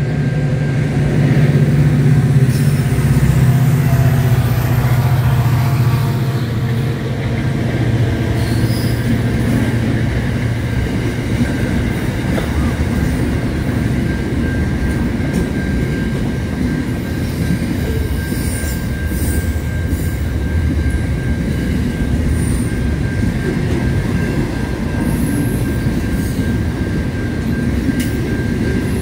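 Freight train passing: the locomotive's diesel engine drones loudly for the first five or six seconds, then container wagons roll by with a steady wheel rumble, scattered clatter and a thin, steady wheel squeal.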